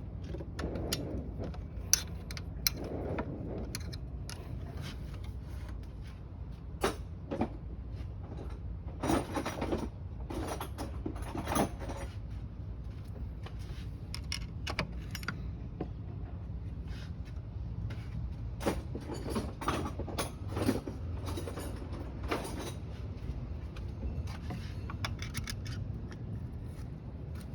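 Metal tools and parts clinking, knocking and scraping in irregular short bursts, over a steady low hum.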